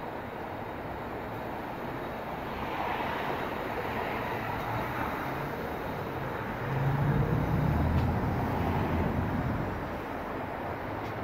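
City street traffic: a steady wash of passing vehicles, with a heavier low engine rumble swelling about seven seconds in and fading a few seconds later.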